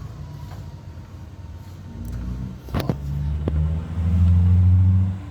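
Hyundai Santa Fe V6 engine and drivetrain running, the low hum swelling about two seconds in, with two sharp metallic clunks shortly after, then a louder steady hum. The clunks are the knocking that the mechanic puts down to a worn drive-shaft tripod joint with a lot of play.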